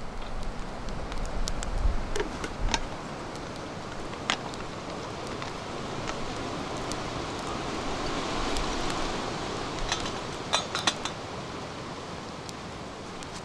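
Small wood campfire burning: a steady hiss with scattered sharp crackles and pops, including a quick cluster of pops about ten and a half seconds in.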